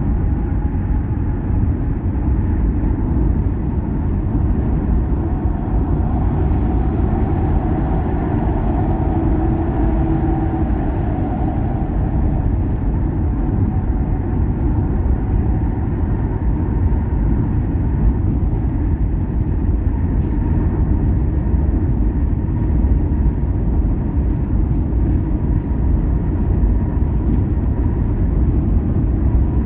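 Steady, low rumble of a moving vehicle: engine and tyre noise on the road.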